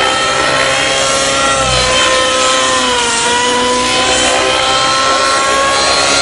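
Align T-Rex 700N nitro RC helicopter in aerobatic flight: its glow engine and rotor make a steady high whine that dips in pitch about three seconds in and climbs back.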